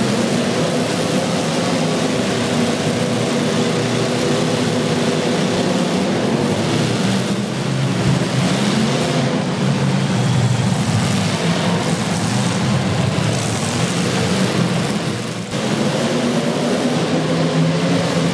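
Demolition derby cars' engines running and revving hard together: a loud, continuous roar with engine pitch shifting up and down, and a brief drop about fifteen seconds in.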